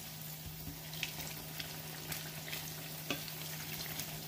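Battered banana fritters sizzling and crackling in shallow hot oil in a frying pan, with a few light ticks as wooden chopsticks turn them. A steady low hum runs underneath.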